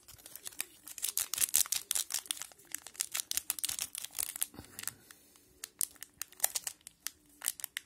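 Hockey trading cards being shuffled through by hand: a quick run of dry slides, flicks and rustles, thinning out after about three seconds.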